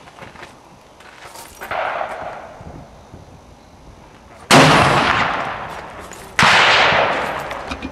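Two loud gunshots about two seconds apart, each with a long fading echo.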